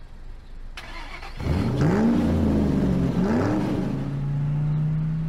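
Car engine sound effect: it starts up, revs up twice, then settles into a steady hum as the car pulls forward.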